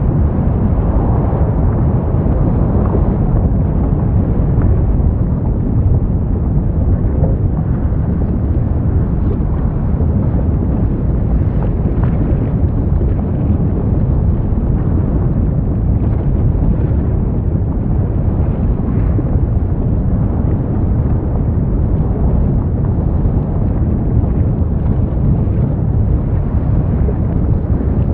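Volcanic eruption: a steady, deep rumble of lava venting and churning in the crater, with no sharp bangs.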